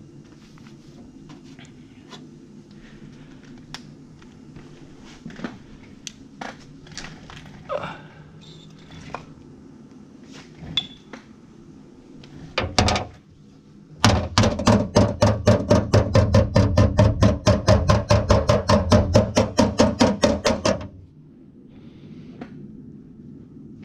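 Rapid hammering on the car's body sheet metal: scattered single knocks and taps, then a fast, even run of loud strikes at about six a second for some seven seconds, which stops abruptly. A steady low hum runs underneath.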